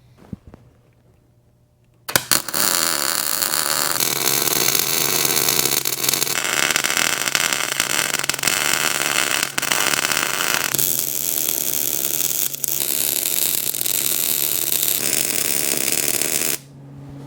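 Welding arc crackling steadily for about fourteen seconds, starting a couple of seconds in and stopping shortly before the end. A steady low machine hum runs underneath.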